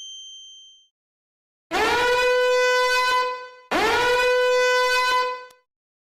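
A brassy horn-blast sound effect, sounded twice, each blast about two seconds long: the pitch scoops up at the start and then holds steady. Before the first blast, the ringing tail of a bell-like ding dies away.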